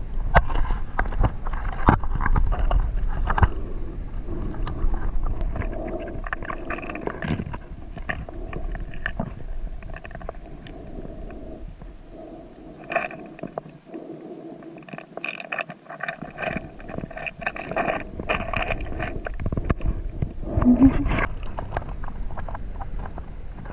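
Muffled underwater sound picked up by a camera beneath the surface: a low rumble of moving water with many scattered clicks and knocks, and a steady hum through the middle part.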